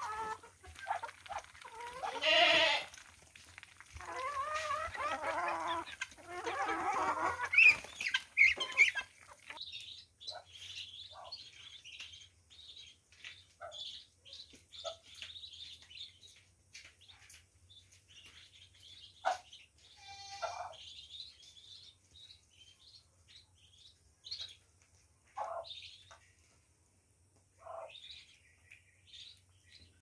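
Loud animal calls for the first several seconds, then Muscovy ducklings peeping in many short high chirps, with a few short lower calls now and then.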